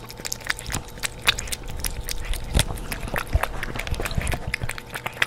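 Cat eating from a metal bowl: a quick, irregular run of chewing clicks and smacks.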